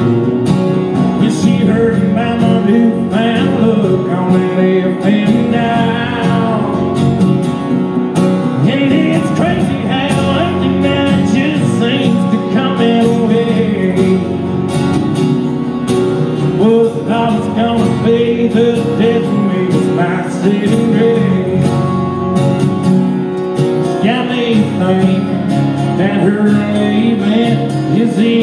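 Acoustic guitars strumming and picking a country song live, with a male voice singing at times.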